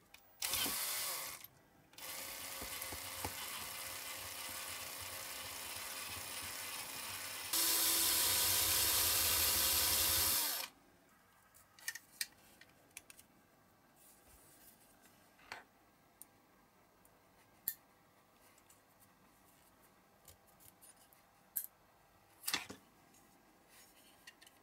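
Power drill running on diecast metal: a burst of about a second, then a steady run that grows louder about seven and a half seconds in and cuts off suddenly near ten and a half seconds. After that, a utility knife scraping the diecast metal in scattered short scrapes and clicks.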